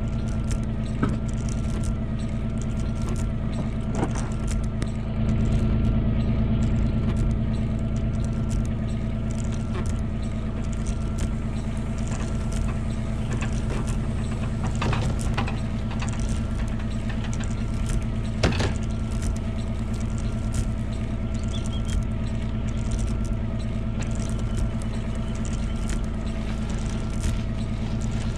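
A vehicle engine running steadily with a constant low drone and hum, with scattered clicks and rattles throughout and one sharper knock about two-thirds of the way through.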